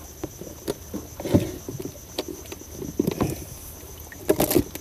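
Scattered knocks, clicks and a few soft thuds as a mangrove jack is handled and put into a plastic cooler box in a wooden boat, with a cluster of sharper clicks near the end as it goes into the box. A steady high insect drone runs underneath.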